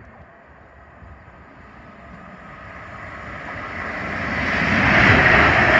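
London Northwestern Railway electric multiple-unit train approaching at speed along the main line. Its rumble and wheel-on-rail hiss grow steadily louder for about five seconds, then hold loud as it reaches the platform.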